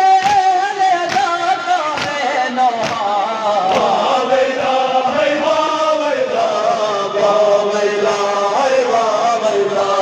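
Men chanting an Urdu noha, a Shia mourning lament, together in a slow melodic line, with sharp beats about once a second in the first half.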